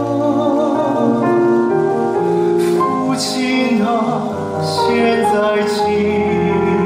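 Musical-theatre ballad at its close: long held notes with vibrato over piano and orchestral accompaniment.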